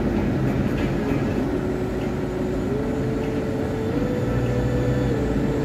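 Steady road and engine rumble inside a moving car's cabin. A faint held tone steps up in pitch a few times and then drops back near the end.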